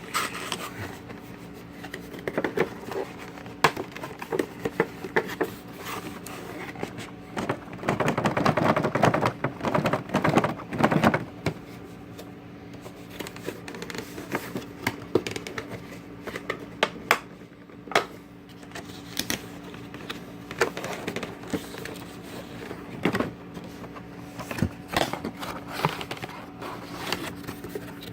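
Cardboard box being cut and pried open with a knife: scattered clicks, taps and scrapes of handling, with a longer stretch of scraping and rustling about eight to eleven seconds in, over a faint steady hum.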